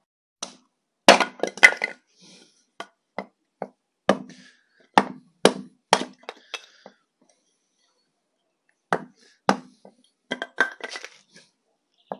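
Sharp knocks and cracks in irregular clusters of two or three, with short pauses between them and a longer pause in the middle.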